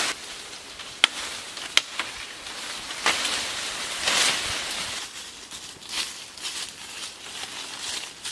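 Two sharp chopping knocks on wood, then leafy branches swishing and rustling as a freshly cut pole is carried through the undergrowth.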